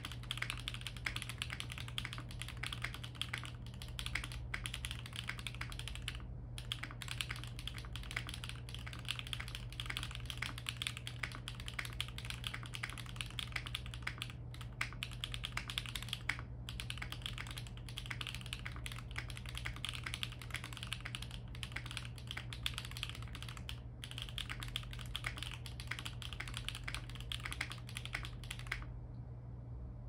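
Foamless 65% mechanical keyboard with HMX x Retros80 KD200 linear switches, ABS Cherry-profile keycaps and a carbon-fibre plate, typed on fast in a dense run of clacky keystrokes over a low steady hum. From about two-thirds of the way in, the larger stabilized keys at the right edge (plate-mounted, lubed stabilizers) are pressed repeatedly.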